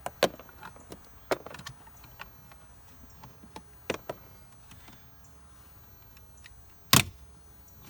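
A few sharp clicks and knocks of hard objects being handled and set down around a vehicle dash, four in all; the loudest comes near the end.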